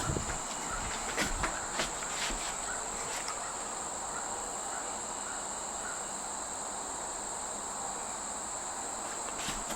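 Steady high-pitched chorus of crickets, over the soft even whir of two Hunter Original ceiling fans running at medium speed. A few faint clicks come in the first few seconds.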